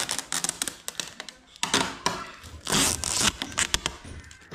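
Protective tape being peeled off the plastic casing of a new split air-conditioner indoor unit, with packaging plastic crinkling: a few short ripping, crackling bursts.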